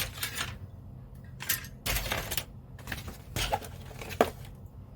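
Small hard scale-model parts being handled and set down: scattered light clicks and clatter, with a sharper click about four seconds in.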